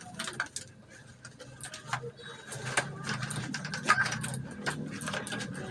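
Packaging being handled and pulled at while a keyboard is worked out of its box: scattered small clicks, knocks and rustles, over a steady low hum.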